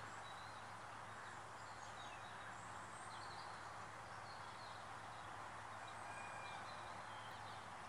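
Faint steady outdoor background hiss with scattered short, faint calls of distant small birds.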